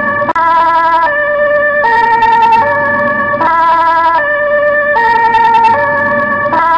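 Ambulance siren sounding loudly, stepping between high and low held notes that change pitch a little more often than once a second in a repeating pattern.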